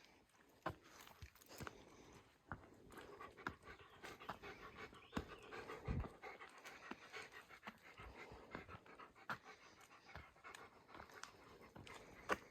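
A person breathing hard in panting breaths from the effort of walking up a steep climb, with faint regular footsteps.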